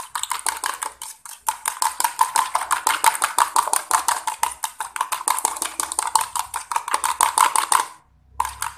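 Metal fork beating eggs in a plastic jug: a rapid, steady clicking of the tines against the jug, with a brief pause about a second and a half in, stopping shortly before the end.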